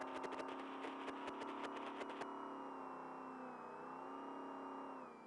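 Trophy truck's engine running steadily, heard from inside the cab, with a rapid run of sharp clicks over the first two seconds. Near the end the engine note briefly drops, then climbs again.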